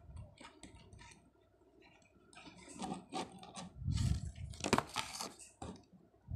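A small die-cast toy car and its cardboard box being handled on a hard tabletop: light clicks and taps, then a run of louder knocks with a dull thump about four seconds in.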